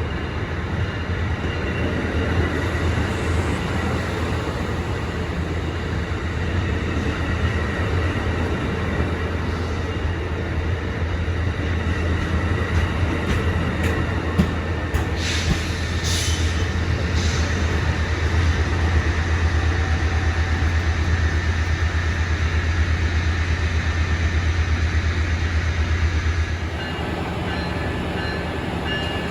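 Train running on the rails: a steady loud rumble with wheel and rail noise and a strong low drone, with a few brief high-pitched sounds about halfway through. The low drone drops off suddenly a few seconds before the end.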